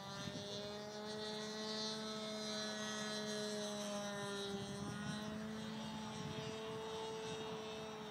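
Great Planes Revolver 59-inch RC aerobatic airplane flying high overhead: its engine and propeller give a steady, distant drone that wavers slightly in pitch.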